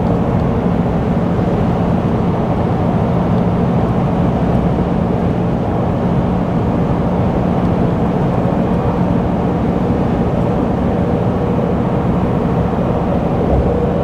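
Pickup truck cruising at highway speed, heard from inside the cab: steady tyre and road noise with an even low hum.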